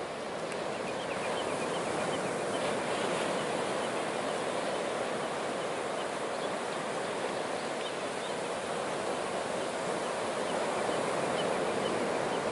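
Steady wash of sea surf on the shore, with light scattered crackles from a driftwood fire.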